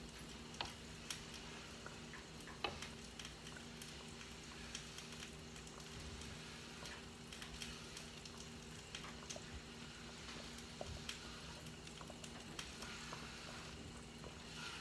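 Hot roux and chicken broth sizzling steadily in a pot as chopped onion, bell pepper and celery are scraped in off a wooden cutting board, with scattered light knocks and scrapes of the board against the pot rim.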